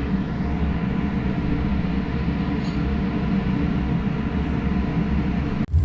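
A steady, low mechanical drone with a constant hum of even tones, like a running vehicle engine heard from inside; it cuts off abruptly near the end.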